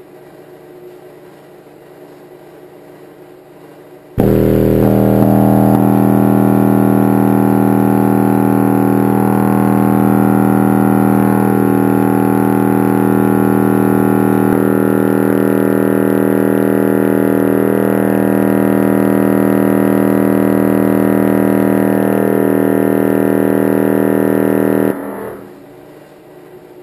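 Audiopipe APSM2000 mini car amplifier putting out a 40 Hz test tone at full power into a half-ohm load: a 'burp' for measuring its power. It is heard as a loud, steady buzzing hum full of overtones that starts abruptly about four seconds in and cuts off about 21 seconds later.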